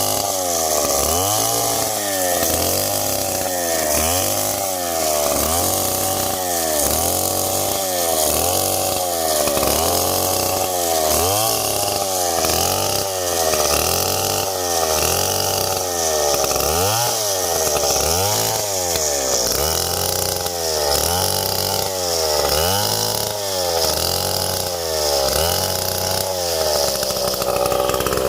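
Chainsaw engine running under load, its pitch rising and falling over and over about once every second and a bit as it works through wood.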